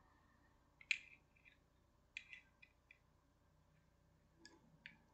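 Faint, scattered clicks and light taps of small metal parts being handled: a Zippo lighter's insert being worked on by hand, about half a dozen sharp ticks over a few seconds.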